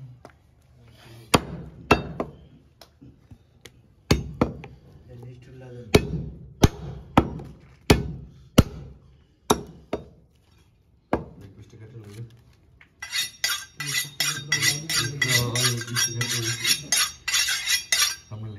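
Heavy butcher's cleaver chopping goat meat and bone on a wooden chopping block: single sharp chops about half a second to a second apart, then a few seconds of fast, dense chopping near the end.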